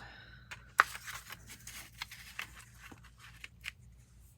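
Paper and craft tools being handled on a work table: scattered small ticks and rustles, with one sharp tap a little under a second in.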